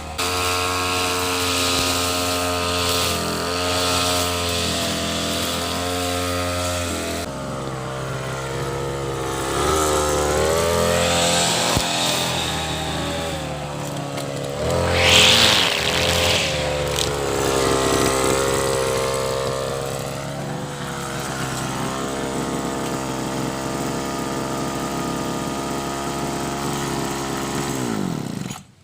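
Brush cutter engine running while cutting grass, its pitch rising and falling as the throttle and load change, with a louder hissing surge about halfway through. Near the end the engine is shut off and its pitch falls away to silence.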